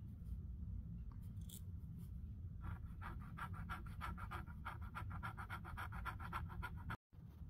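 Pilot Falcon fountain pen's soft italic-ground nib scratching on paper in quick back-and-forth strokes, about five a second, from about two and a half seconds in; the pen is running dry of ink. The sound stops abruptly near the end.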